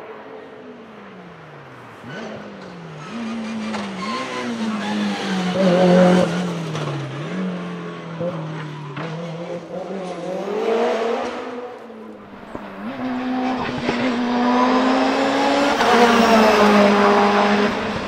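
Tuned Mitsubishi Lancer Evolution race cars' turbocharged 4G63 four-cylinder engines at full throttle up a hillclimb, revving out and shifting up, the pitch climbing and then dropping at each gear change. The engine is loudest about six seconds in and again in a long run near the end.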